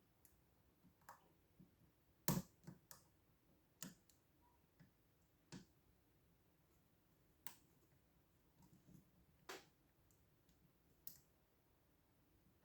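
Faint, irregular clicks of a lock pick and tension wrench working the pin stack of a Mauer MG redline lock during picking, with one sharper click about two seconds in.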